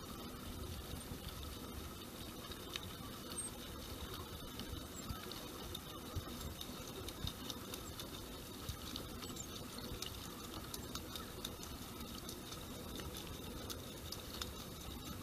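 Small waves lapping and trickling against a kayak hull, with many small drips and splashes, over a steady low rumble.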